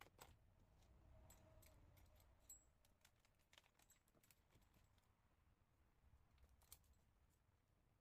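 Near silence with a few faint, scattered clicks and light taps, as of small parts being handled.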